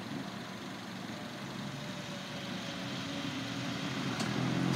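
Road traffic: a queue of cars idling, the engine sound building toward the end as vehicles start to pull away. A brief sharp click about four seconds in.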